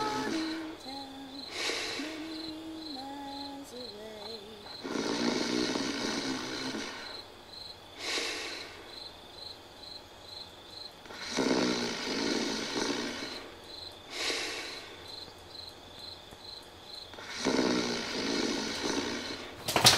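Slow, rhythmic snoring of a sleeper: a long snore followed by a shorter one, the pair repeating about every six seconds. A few short low moans come in the first seconds, and a brief loud crackle at the very end.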